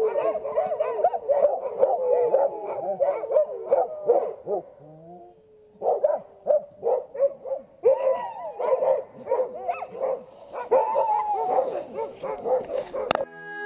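A yard full of chained sled dogs barking, yipping and howling together in a constant din, easing off briefly about halfway through before starting up again. The dogs cut off abruptly just before the end.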